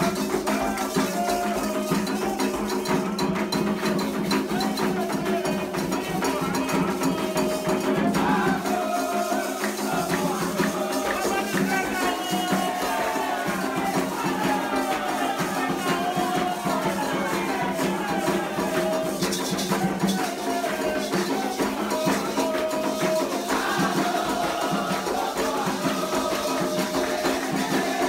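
Live Candomblé ritual music: atabaque hand drums and a rattle keeping a steady rhythm, with hand clapping and voices singing over it.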